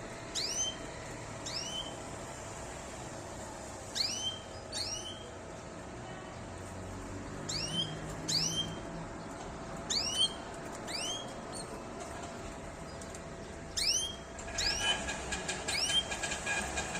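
Domestic canaries calling with short rising chirps, singly or in pairs, every second or so. About three-quarters of the way through, a rapid, dense ticking or rattling sound joins them.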